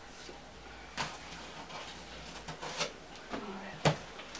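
Cardboard shipping box being opened by hand: rustling and scraping of cardboard as the taped flaps are worked loose, with two sharp clicks, about a second in and near the end.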